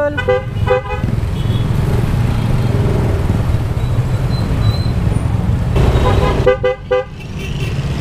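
Motorcycle horn beeps over a scooter running on the move with wind and road rumble: a couple of short beeps about half a second in, and three quick ones near the end.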